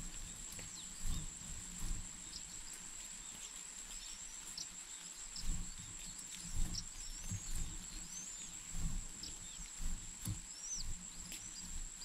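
Spotted dove feeding its squabs at the nest, with irregular soft thumps and rustling from the birds jostling. Scattered short high chirps sound over a steady high-pitched whine.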